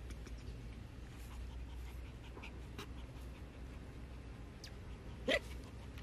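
A puppy gives one short whimper about five seconds in, over faint scattered clicks.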